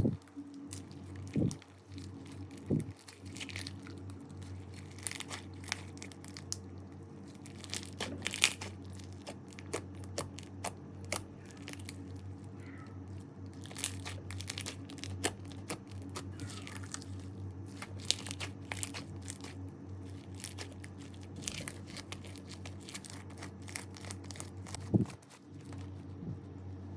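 Slime being pressed and worked by hand, giving a dense run of irregular crackles and small pops.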